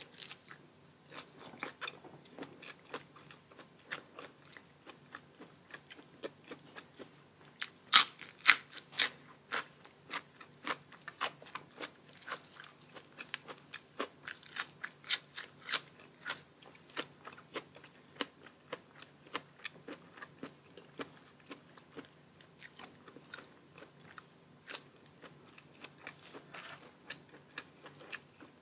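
A person biting and chewing crunchy food in many crisp crunches. The loudest bites come in a cluster about a third of the way through.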